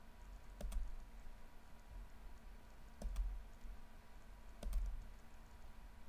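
Faint computer mouse clicks, three times, each a quick double tick, over a low steady hum.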